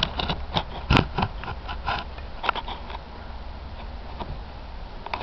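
Irregular dull thuds and scuffs of a ridden Thoroughbred's hooves on grass footing, busiest in the first few seconds, with one sharp click about a second in and a steady low rumble underneath.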